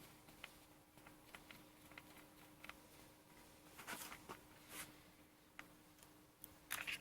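Faint clicks and small scrapes of a screwdriver and tiny screws being worked on a MacBook Pro's bottom, with a few brief louder scrapes about four seconds in, just before five seconds and near the end, over a faint steady hum.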